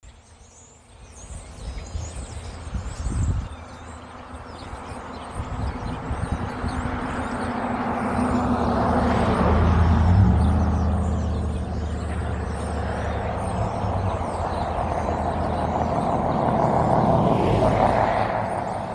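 A motor vehicle engine running close by, growing louder over the first ten seconds and staying loud, with faint bird chirps high above it.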